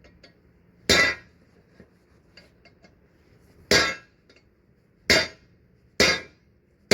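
Hammer striking metal five times at uneven intervals, each blow ringing briefly: hammering out a stubborn bushing casing from a leaf spring eye.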